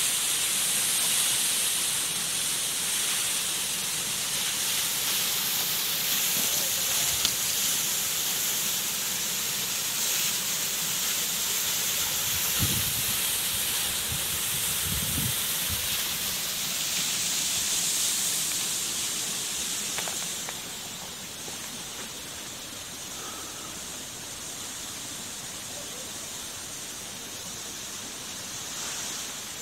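Steady rushing hiss of water falling down a partly frozen waterfall. It drops a little about two-thirds of the way through.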